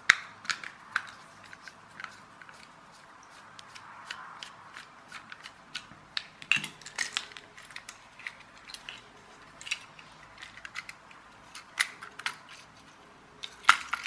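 A small screwdriver taking the screws out of a toy's red plastic wired-controller case, with irregular sharp clicks and taps of plastic and metal as screws come out and the case is handled. Near the end the case halves are prised apart.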